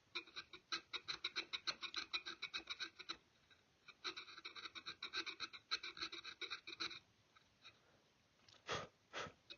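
Rapid back-and-forth scraping of a hand tool on the wooden stock while inletting, about seven strokes a second with a faint ringing edge, in two runs of about three seconds each with a short pause between. Two short knocks follow near the end.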